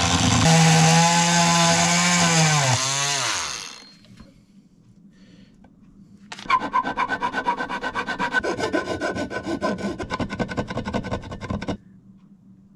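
A hand-held oscillating power tool cuts the corner of an aluminium motorcycle radiator, its motor whining steadily and then winding down in pitch about three seconds in. After a short pause, a second stretch of fast, rasping cutting on the metal starts about six seconds in and cuts off abruptly near the end.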